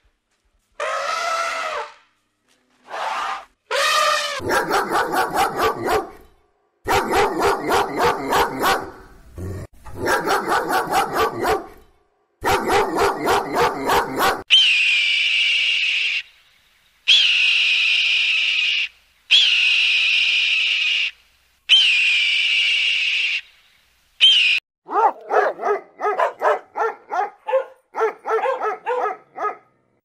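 A run of rapid pulsed animal calls, then a hawk screaming five times, each scream drawn out for about two seconds with a sharp start. Near the end comes a quick series of short pulsed calls.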